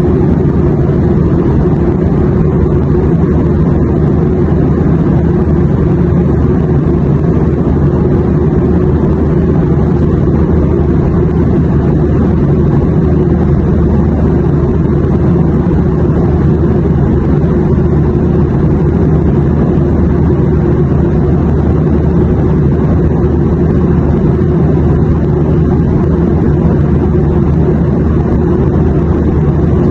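Airplane noise: a steady, unbroken low rumble of engine drone and rushing air, with no changes or separate events.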